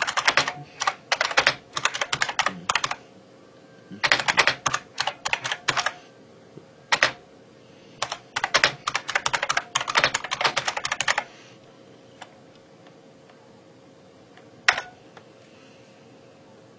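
Typing on a computer keyboard: several quick runs of key clicks with short pauses between them, stopping about eleven seconds in, followed by two lone key taps.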